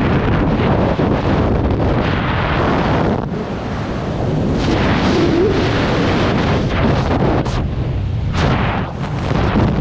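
Freefall airstream blasting across the microphone of a skydiver's camera: a loud, continuous rush of wind noise with uneven surges.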